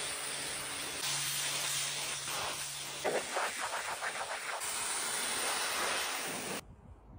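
Kärcher pressure washer jet blasting grime off a boat's fibreglass deck: a steady, loud hiss of spraying water, gritty and fluttering for a moment in the middle. It cuts off suddenly about a second before the end.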